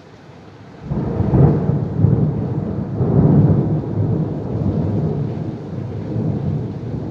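Thunder: a loud low rumble breaks in suddenly about a second in, swells two or three times, then rolls on, slowly easing.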